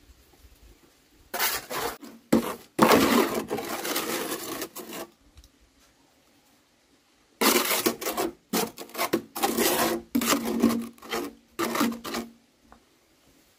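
Repeated rough scraping strokes in two runs, the second starting about two seconds after the first ends.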